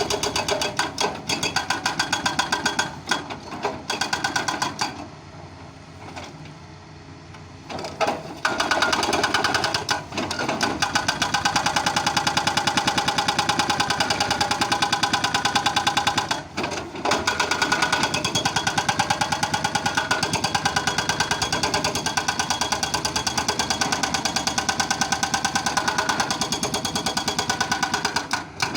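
Doosan excavator's diesel engine running with a fast, even pulsing. It drops away for about three seconds, starting about five seconds in, then comes back up and holds steady, with brief dips later on.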